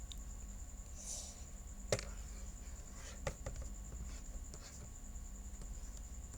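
Pen on a toy writing board: faint scratching strokes with a few light taps, the sharpest just under two seconds in and another just after three seconds.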